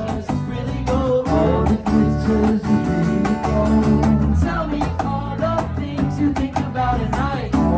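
Live band music: guitar lines over bass and drums with a steady beat.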